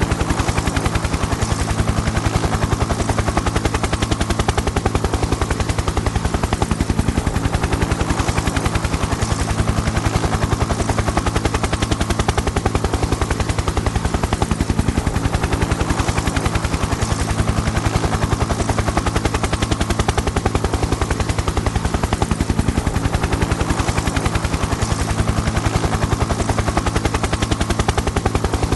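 Helicopter rotor running steadily: a fast, even chop of the blades over a low, steady drone, holding at a constant level.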